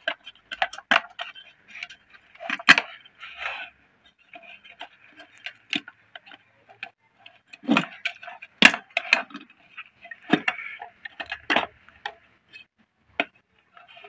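Irregular small clicks and taps of metal and plastic as push-on pin connectors and wires are handled and worked off the terminals inside an electric kettle's base.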